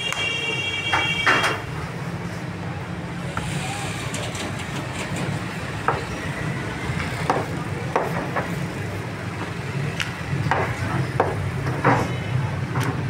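A wooden rolling pin knocking and rolling on a marble slab as dough is rolled out, about a dozen short scattered knocks. A steady hum of street traffic runs underneath, with a brief high-pitched tone in the first second and a half.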